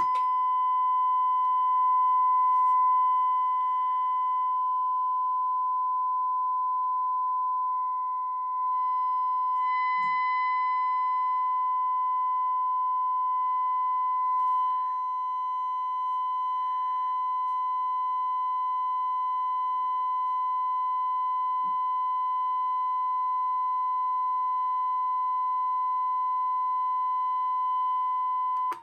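Steady test tone of about 1 kHz from the Cushman CE-50A service monitor's tone generator, held at an even pitch and level.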